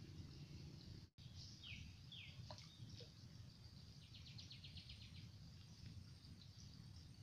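Quiet outdoor ambience by a pond. Small birds call: two short descending chirps about two seconds in, then a fast trill of repeated notes around four seconds in. Underneath runs a steady high insect hiss and a low rumble.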